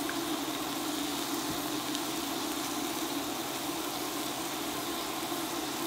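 Steady low hum with an even hiss, unchanging throughout, from a running appliance or room machinery rather than voices.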